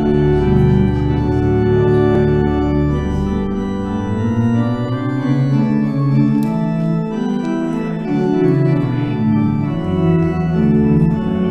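Church organ playing sustained chords, with a deep pedal bass note held for about the first three seconds before the chords move on without it.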